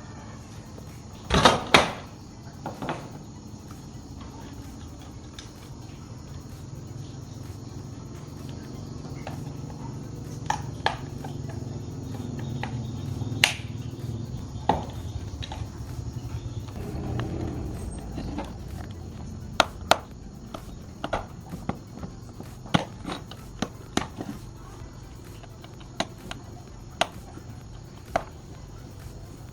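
Scattered sharp clicks and knocks of small parts and tools being handled during a repair, over a steady low hum; the loudest is a pair of knocks about a second and a half in.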